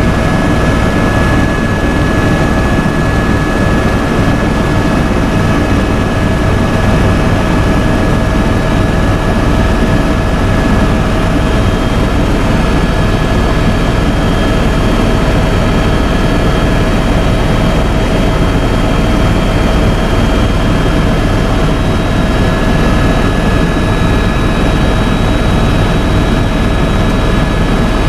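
Helicopter in flight, heard from inside the cabin: a loud, steady drone with a fast low beating from the rotor and thin, constant whining tones above it.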